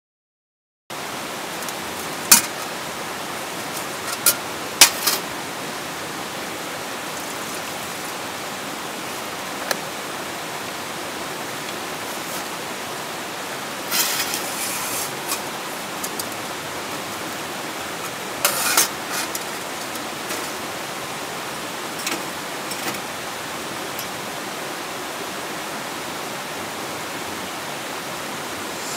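Steady rushing of a rocky stream, starting about a second in, with scattered sharp clicks and knocks of camp gear being handled on a tailgate table, the loudest a few seconds in and a few more clustered in the middle.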